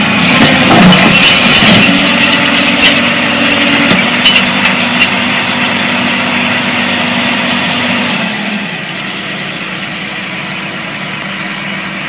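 Hyundai crawler excavator's diesel engine running under load while the machine holds itself up on its bucket with the tracks raised, with a few sharp knocks about four seconds in. About eight seconds in the engine drops back to a lower, steady idle.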